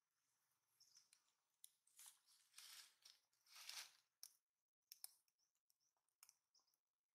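Near silence broken by faint, brief scratchy rustling noises, a few longer ones in the middle.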